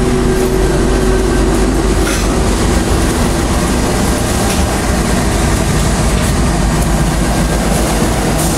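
Passenger train running along a station platform, heard from inside the carriage at the doorway: a steady rumble and rush of wheels on rails with some clickety-clack.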